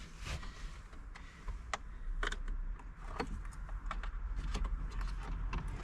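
Plastic dashboard creaking and clicking as it is pried and pulled loose from its clips, with scattered sharp clicks and knocks.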